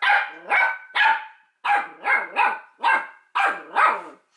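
Shetland sheepdog puppy barking in a run of about nine short, high-pitched barks, some coming in quick pairs: frustrated barking at not being given treats.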